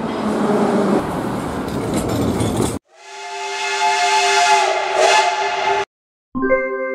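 Rushing noise of a passing train, then a hard cut to a steam locomotive's chime whistle sounding for about three seconds over a hiss of steam, ending abruptly. After a short silence, an electronic keyboard jingle begins near the end.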